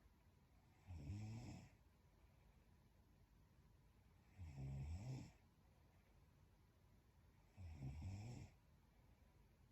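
A young woman snoring in her sleep: three short, quiet snores, each under a second long, coming about every three and a half seconds.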